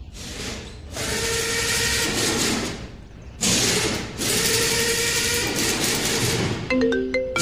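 Two long whirring bursts like a power drill or impact wrench running, a tool sound effect laid over a toy figure working on a toy tractor's wheel hub. A few short mallet-like notes begin near the end.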